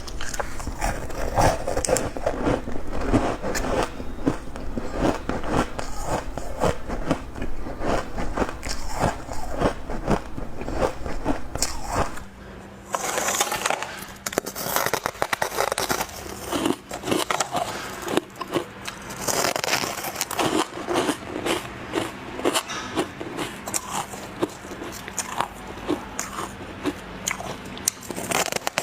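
Ice being bitten and chewed at close range, dense irregular crunching throughout. About twelve seconds in a low rumble drops away and the crunching goes on, crisper.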